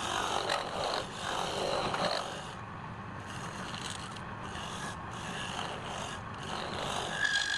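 A tool scraping on wood in a run of repeated strokes, each about half a second to a second long with short breaks between them. A brief higher-pitched squeal comes near the end.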